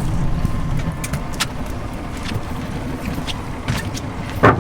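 Engine running with a steady low rumble, with scattered light clicks and a short knock near the end.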